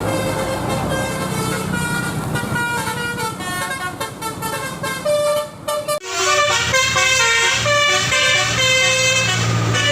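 Telolet basuri multi-tone car horn playing a quick tune of stepped notes over a steady low hum. The sound breaks off abruptly about six seconds in, and the horn tune starts again straight away.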